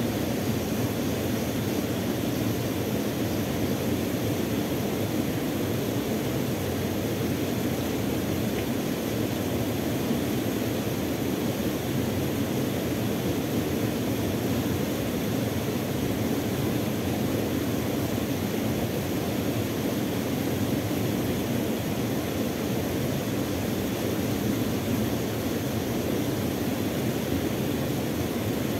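Steady rush of water from a small waterfall pouring over a weir into a river pool.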